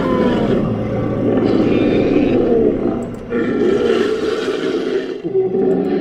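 Styracosaurus dinosaur sound effect, a creature voice mixed from animal recordings. It gives long, rough roars, three in a row with barely a break between them.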